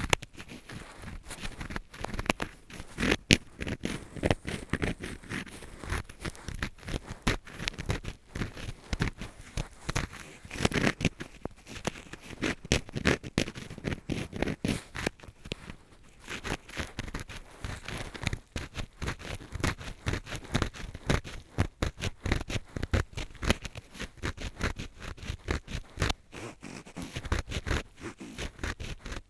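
Ear-cleaning scraping with a drill screw used as an earpick: close, dense, irregular scratching and crackling strokes.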